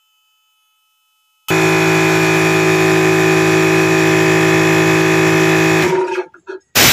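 Small airbrush compressor switching on about a second and a half in and running with a steady hum for about four seconds, charging a CO2-to-PCP converted air rifle, then cutting off. A brief loud burst of noise comes at the very end.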